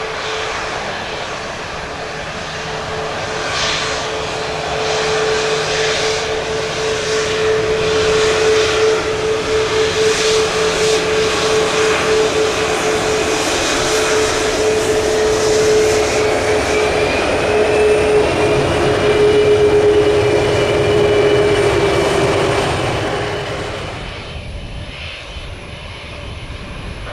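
Jet airliner's engines running as it passes, building to a peak and fading near the end, with a steady whine that slowly drops in pitch.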